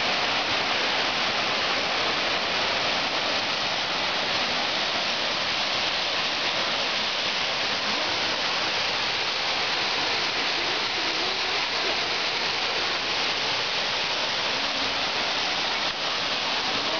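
Waterfall pouring down a narrow rocky chute into a gorge: a steady, even rush of falling water.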